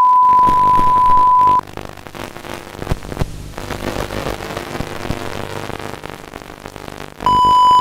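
A steady, loud, high broadcast test tone holds for about a second and a half and cuts off. Harsh TV static hiss with a low droning hum follows, and the same tone sounds again briefly near the end.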